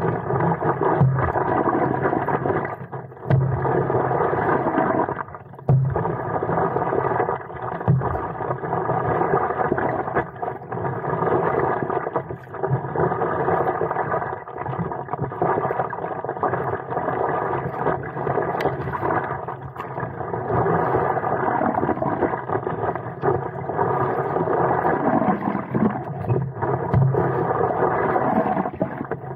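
Water sloshing and rushing against a stand-up paddleboard as it is paddled along, with paddle strokes in the water and wind on the microphone.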